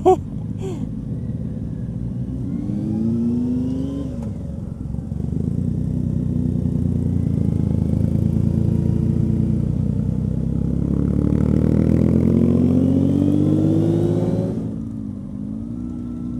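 Honda CB600F Hornet's inline-four engine pulling away and accelerating through the gears. Its pitch rises, dips at a gear change about four seconds in, then climbs a long way before the throttle closes near the end. There is a short loud noise right at the start.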